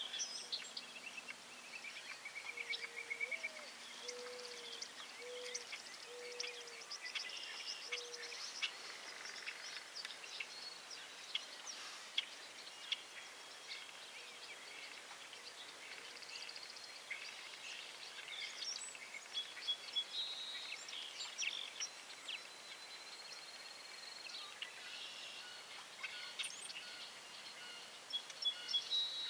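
Several small birds chirping and trilling, over a faint steady background hiss. A few seconds in, another bird gives a run of about five low, evenly spaced notes, the first one rising.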